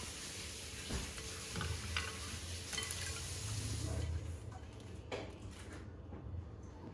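Slotted plastic spoon scooping through a steel pot of hot, simmering water, with a few light clicks of the spoon against the pot over a steady hiss from the water. The hiss fades about four seconds in.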